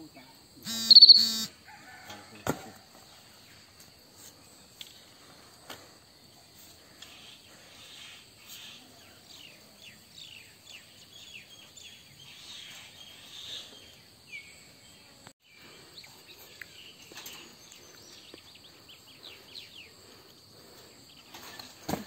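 Outdoor rural ambience: a steady high insect drone with scattered bird chirps, and a few knocks and clicks from a metal gate as people climb over it and lift a bicycle across. A loud, brief, high-pitched squeal comes about a second in, followed by a sharp knock.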